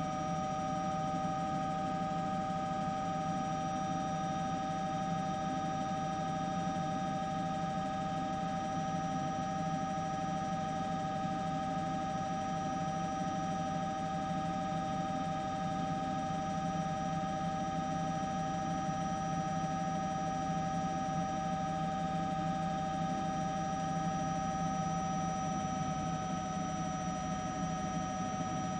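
Steady engine hum with several level whining tones and no changes, typical of a helicopter's turbine heard from on board; the excavator and falling debris are not heard.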